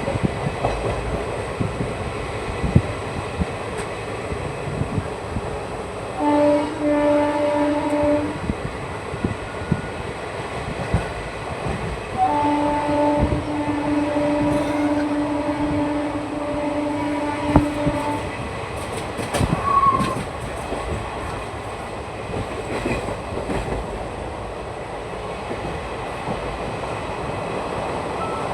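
ICF passenger coaches running on the track: a steady rumble with frequent clicks of the wheels over rail joints. A train horn sounds twice, a blast of about two seconds some six seconds in, then a longer one of about six seconds some twelve seconds in.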